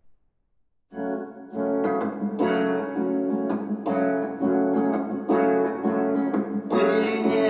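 Guitar playing a song intro: picked notes in a steady rhythm start about a second in, and the playing grows fuller and denser near the end.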